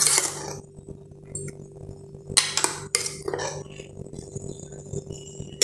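Steel spoon scraping and clinking against the inside of a stainless-steel mixer jar as a thick ground paste is scooped out. It makes a few separate clinks, the loudest about two and a half and three seconds in, over a faint steady hum.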